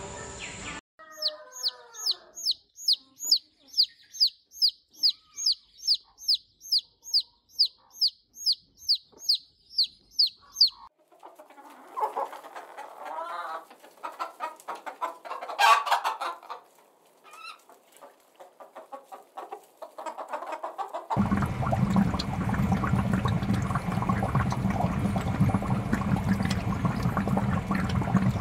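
A fast run of high, falling chirps, about two or three a second, for about ten seconds; then domestic hens clucking, with one louder call midway. A steady rushing, water-like noise takes over for the last several seconds.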